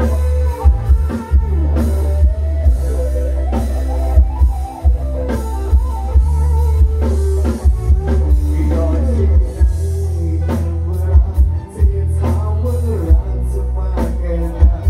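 Live band music played loud through a Thai rot hae sound truck's PA: heavy bass, a steady drum beat and electric guitar, with a man singing into a microphone over it.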